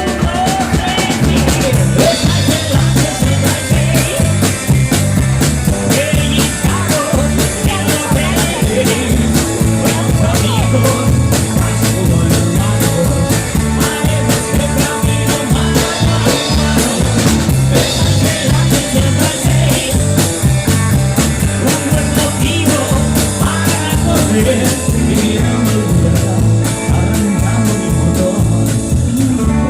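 Live rock band playing, with drums and bass keeping a steady, driving beat.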